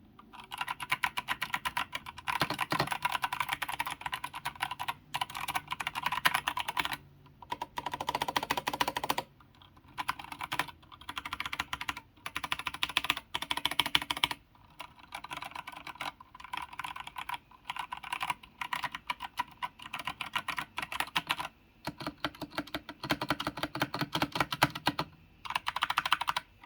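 Fast typing on a 60% mechanical keyboard with Kailh Box Brown tactile switches in a walnut wood case, in runs of rapid keystrokes with short pauses between them. Typed with heavy force, the keys sound loud, the wooden case adding to the loudness.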